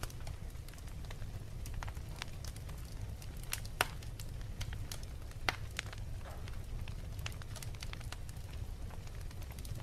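Wood fire in a fireplace crackling, with irregular sharp pops over a steady low rumble of the flames. Two louder pops come near the middle.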